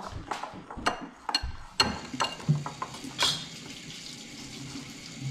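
A wire whisk clinks irregularly against a ceramic bowl while stirring thick whipped dalgona coffee, with a wet swishing of the mixture. The clinks come in the first few seconds, then only a quieter swishing is left.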